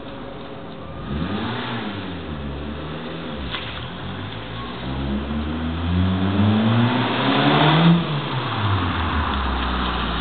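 Ford Escort RS Turbo's turbocharged four-cylinder engine approaching under acceleration. Its note rises and falls a few times, then climbs in one long rev to its loudest point about eight seconds in, and drops sharply as the driver lifts off.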